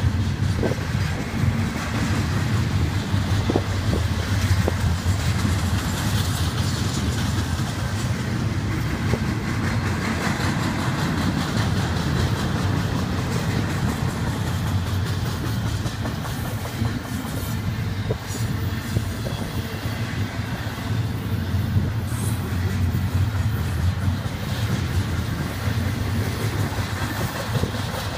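Intermodal freight train's double-stack container well cars and trailer-carrying flatcars rolling past: steady noise of steel wheels on the rails with some clickety-clack.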